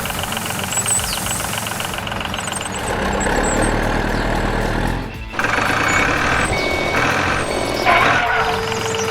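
A truck engine running steadily, dipping briefly about five seconds in, with a steady tone sounding over the last second.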